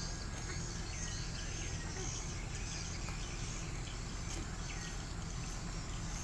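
Steady outdoor background noise with faint bird chirps now and then.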